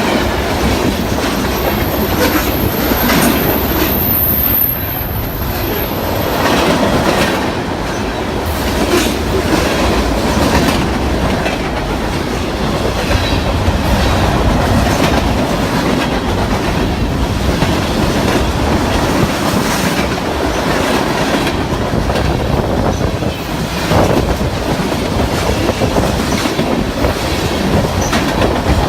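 Cars of a New York, Susquehanna & Western freight train rolling past, their wheels clacking over rail joints. A high wheel squeal sounds for about the first six seconds.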